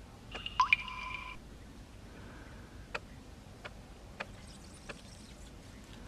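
Water drops dripping: a loud ringing double plink with a rising note about half a second in, then four softer single drips at roughly half-second to second-long intervals.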